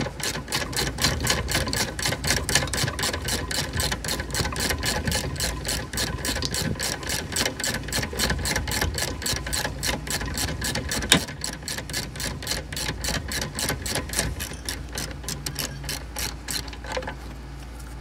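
Socket ratchet clicking rapidly and evenly, about five clicks a second, as it works the 17 mm bolt at the bottom of a seatbelt retractor loose. There is one louder knock about eleven seconds in, and the clicking stops shortly before the end.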